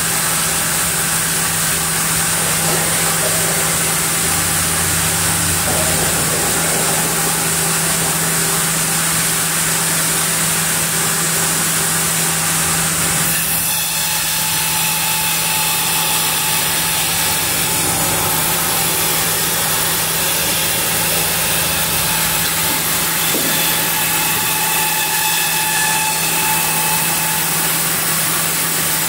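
Large log band sawmill running steadily, a loud constant machine noise with a steady low hum; the sound shifts abruptly about thirteen seconds in as the carriage moves the camphor log.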